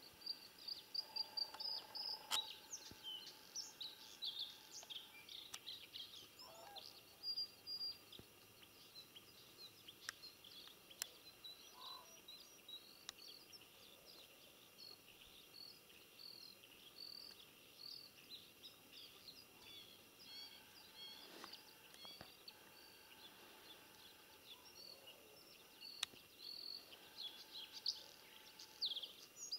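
Faint birdsong from several small birds: many short high chirps and trills, busiest in the first few seconds and again near the end, with a few faint clicks.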